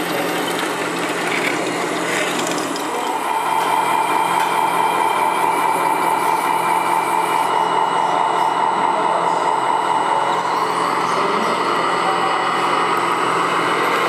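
Electric motors and gearboxes of radio-controlled scale construction models whining steadily, the pitch shifting higher about ten seconds in as the model truck pulls the lowboy trailer away.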